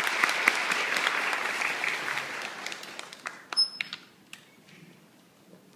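Audience applause in a hall that fades away over about three seconds and ends in a few last scattered claps. A short high ping sounds about three and a half seconds in, then the hall goes quiet.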